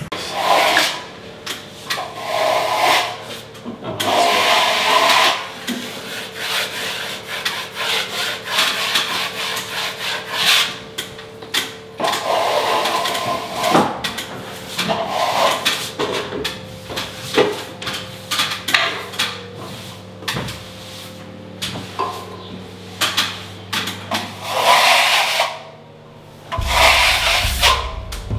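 Plaster being worked with a steel trowel: repeated, uneven scraping strokes, each lasting about a second, as wet plaster is spread and smoothed on the wall. A faint steady hum runs underneath.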